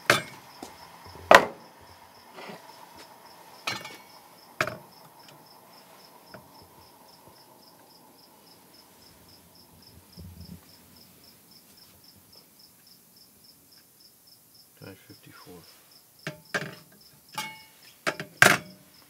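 Steel connecting rods set down on a scale's metal pan and on a workbench: a few sharp metallic knocks, then a run of them near the end. Under the first part a faint, high, evenly pulsing tone that stops about three quarters of the way through.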